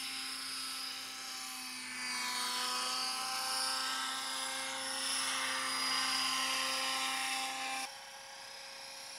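Radio-controlled scale Agusta A109A model helicopter flying: a steady high whine from its motor and rotors, shifting in pitch as it moves past. About a second before the end the sound drops abruptly to a quieter, more distant whine.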